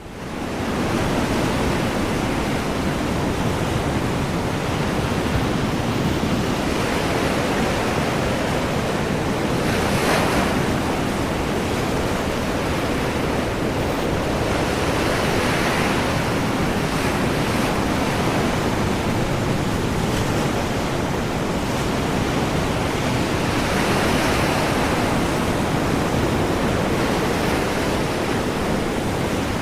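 Ocean surf: a continuous wash of waves with slow swells of louder breaking water every several seconds, along with some wind.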